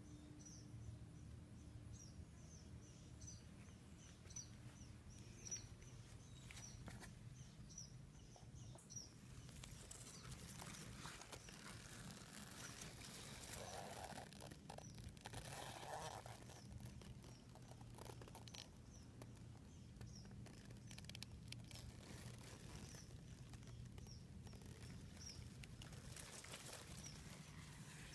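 Faint outdoor ambience: a short high chirp repeats about twice a second over a low steady hum, with some rustling and handling noise in the middle as the phone is pushed in among the plant leaves.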